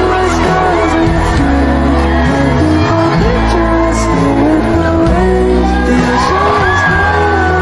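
Background music: a pop song with a sung melody over steady bass.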